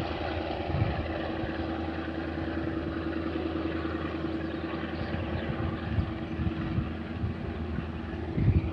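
Diesel-electric-hauled passenger train running along the track, heard from a coach window: a steady rumbling drone with a held tone, swelling briefly in a few low rumbles near the start and the end.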